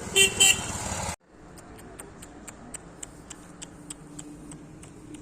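Two short, loud honks in quick succession, then, after an abrupt cut, a run of sharp ticks at about three a second over a quiet background.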